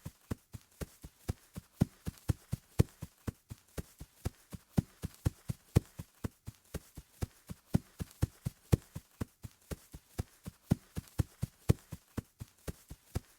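Footsteps of a person running on grass: quick, even thuds at about four steps a second, some landing harder than others.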